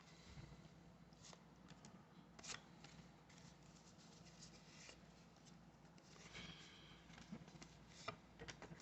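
Near silence with faint scattered clicks and rustles of trading cards being handled and flipped through.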